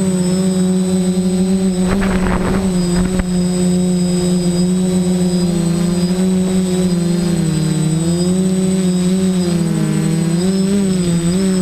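DJI quadcopter's electric motors and propellers running in flight, a steady buzzing whine whose pitch wavers slightly up and down as the throttle changes. A short rush of noise comes about two seconds in.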